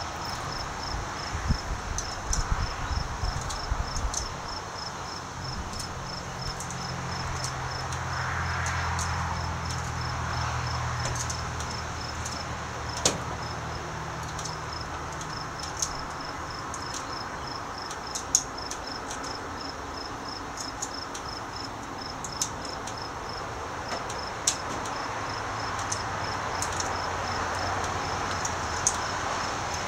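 Insects chirping in a steady, rapid, even pulse, with scattered sharp clicks; the clearest click comes about halfway through, and a low hum rises and fades in the first half.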